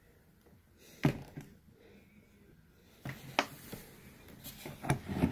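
Vacuum cleaner parts being handled: a few light knocks and clatters as the pieces are picked up and set down, the sharpest about a second in.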